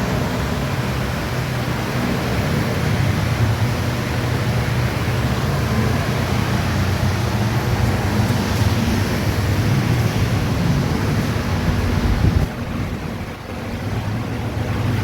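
Steady rush of air and low hum from ventilation fans and air-conditioning units running. The level drops suddenly about twelve seconds in and recovers a couple of seconds later.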